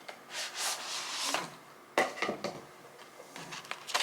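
A small gift box and its packaging being worked open by hand: rustling and sliding for the first second and a half, then a sharp click about two seconds in and several lighter clicks and taps.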